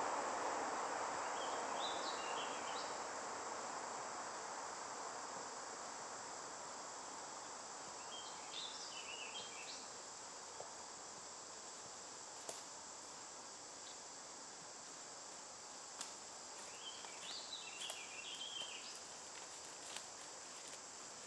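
Woodland ambience: a steady high insect hum, with a bird singing three short phrases several seconds apart. A broad hiss fades away over the first few seconds. From about halfway, footsteps of a person and a dog crunch through dry leaf litter, growing closer and more frequent towards the end.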